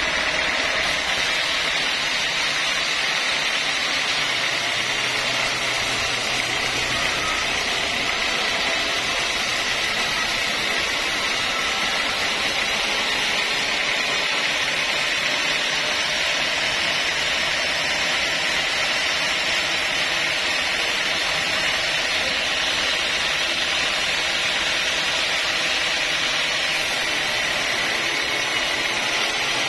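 Sawmill band saw running steadily, its blade sawing lengthwise through a large log.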